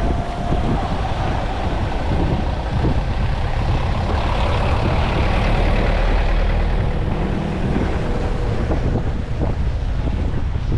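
A heavy truck's engine running steadily, with a rushing hiss that swells in the middle.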